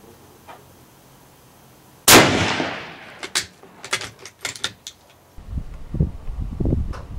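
A single shot from a Type 99 Arisaka rifle (7.7 mm) about two seconds in, its sharp report fading away over about a second, followed by a run of sharp clicks. Toward the end there is low, irregular rumbling.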